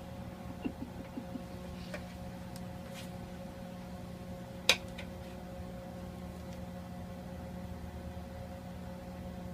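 A welding machine humming steadily at idle with its arc off, with a few light clicks and one sharper tap about five seconds in.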